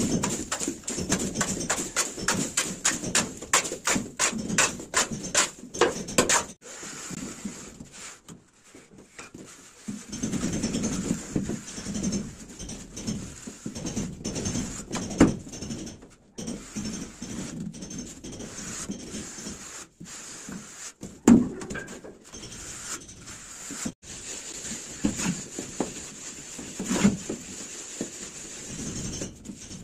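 Hand plastering of sand-and-cement mortar on a ceiling with a trowel: a fast run of sharp taps and scrapes for the first six seconds or so, then slower, irregular scraping strokes and knocks.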